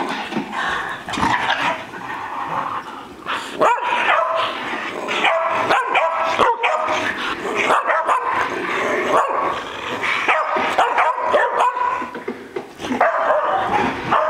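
Dogs barking and yipping excitedly at play, the barks coming one after another almost without a break.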